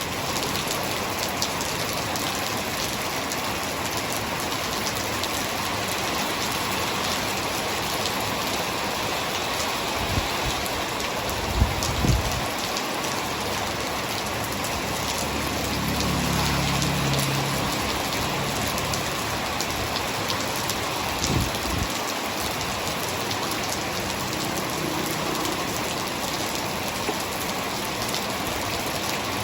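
Heavy rain falling steadily. A few low thuds come about ten, twelve and twenty-one seconds in, and a brief low rumble comes about midway.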